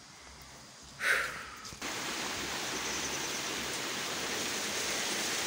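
Steady rush of a stream running high with water, starting abruptly nearly two seconds in. A brief, louder sound comes just before it, about a second in.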